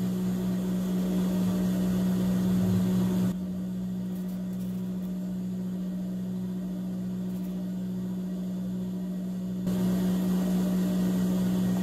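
Steady electric motor hum, plausibly from the idling motor of an industrial sewing machine. The hum drops abruptly in level about three seconds in and comes back up near the end.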